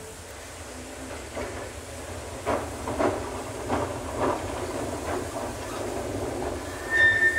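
Vintage electric tram approaching slowly, its wheels knocking irregularly over rail joints and points above a low rumble. A brief high tone starts near the end.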